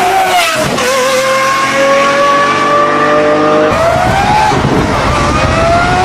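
High-performance car engine accelerating hard, its pitch climbing and then dropping sharply at each upshift, about half a second in and again near four seconds.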